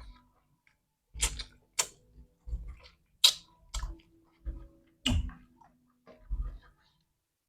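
Close-up eating sounds of someone chewing fried chicken and rice: irregular wet lip smacks and sharp mouth clicks, each with a soft low thump, about one every half second to second.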